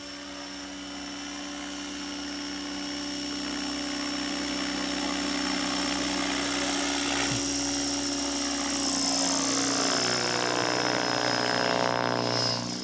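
Align T-Rex 600 radio-controlled helicopter flying, its rotors and drive making a steady whine that grows louder over the first several seconds.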